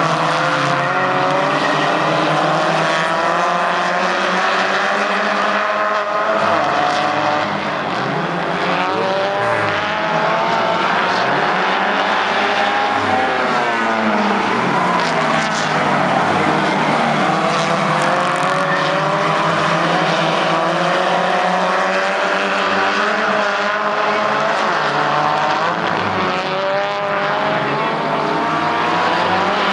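Several race car engines running at race speed, overlapping, their pitch repeatedly rising and falling as the cars accelerate and lift around the track.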